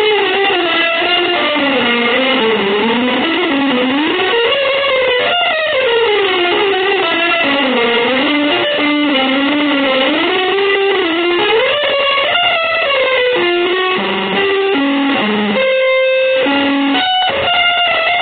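Electric guitar through effects playing a slow melodic line that glides up and down in pitch without a break, then changes to short separate notes in the last few seconds.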